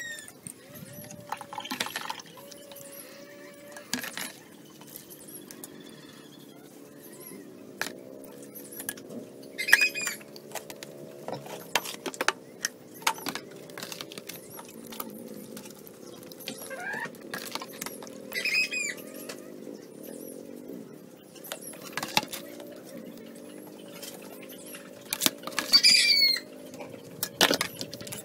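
Thick liquid soap being poured through a plastic funnel into plastic bottles, with many clicks and knocks of plastic jugs, funnel and bottles being handled, and a bottle cap screwed on near the end. A bird calls three times in the background over a steady low hum.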